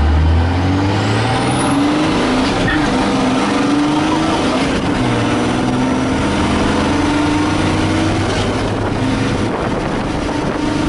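Dodge Ram pickup's engine under hard acceleration, heard from inside the cab: its pitch climbs, drops back at a gear change, and climbs again several times as the truck pulls through the gears.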